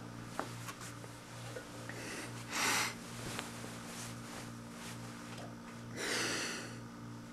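Two short sniffs or snorts through the nose, about two and a half and six seconds in, over a low hum that pulses about twice a second.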